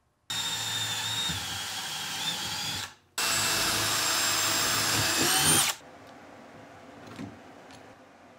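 Cordless drill boring holes through thin aluminium angle into plywood for rivets, in two runs of about two and a half seconds each with a short pause between. The motor whine holds steady and rises briefly just before the second run stops.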